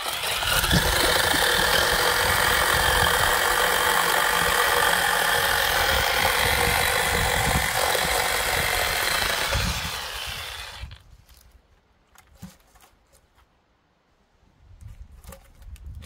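Small Champion chainsaw cutting into a log: a loud, steady whine of chain through wood that starts abruptly, runs about ten seconds, then winds down and stops. A few light knocks follow.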